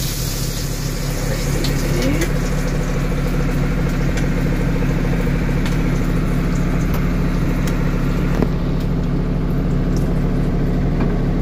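Steady low machine hum, like an electric motor or fan running, with a hiss over it that drops away about eight seconds in.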